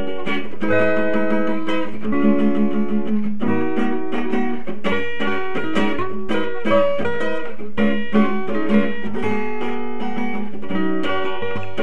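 Background music: a guitar with plucked and strummed notes and a steady flow of chords.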